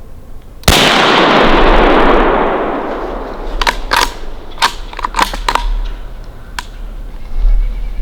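A single close rifle shot from a .350 Legend about a second in, its report rolling and fading through the woods for about two seconds. It is followed by a scatter of short sharp clicks and snaps.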